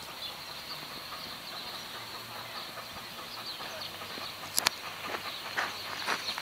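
Distant steam locomotive approaching, heard as a faint steady rumble under open-air background noise. From about two-thirds of the way through, a series of sharp close taps, roughly two a second, stand out as the loudest sounds.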